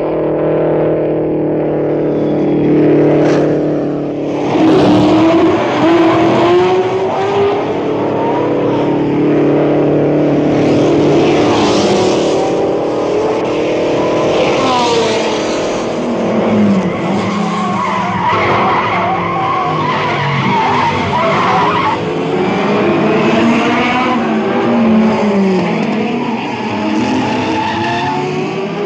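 Racing car engine running hard with a steady note at first. From about four seconds in, repeated wavering tyre squeals join it as the car goes through the corners.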